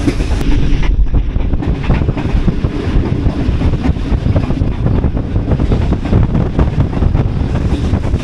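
Wind buffeting the microphone from a passenger train running at speed, over the train's continuous low rumble.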